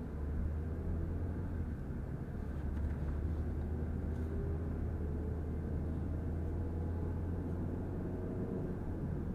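Car driving at highway speed, heard from inside: a steady low drone of engine and tyre noise.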